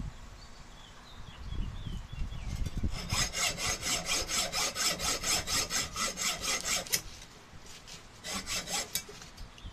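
A hand hacksaw fitted with a diamond tile-cutting blade saws back and forth through a small metal part held in locking pliers. The strokes are quick and even, about five a second. A steady run starts about three seconds in and stops near seven seconds, and a shorter burst of strokes comes near the end.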